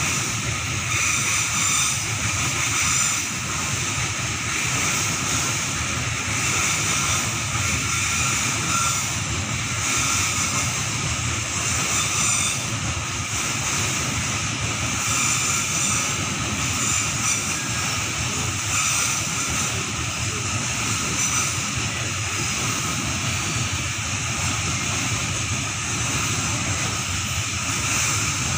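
Long Babaranjang coal train's open coal wagons rolling past, a steady rumble and clatter of steel wheels on rail, with high-pitched ringing or screeching that comes and goes.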